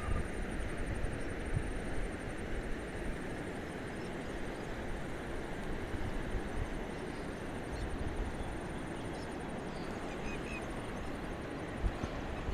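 Steady outdoor rushing noise, heaviest in the low end, with a faint high, rapidly pulsing trill running through it and a couple of brief faint bird chirps about ten seconds in.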